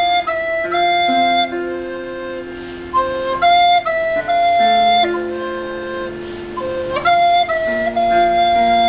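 Plastic soprano recorder playing a slow melody of held notes, over a backing accompaniment of lower notes held for several seconds at a time.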